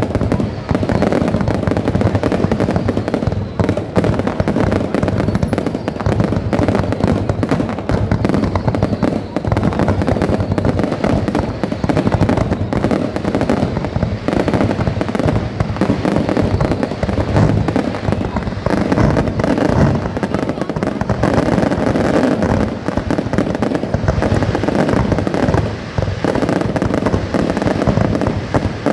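Aerial fireworks display going off in a dense, continuous barrage: rapid overlapping bangs and crackling with no pause.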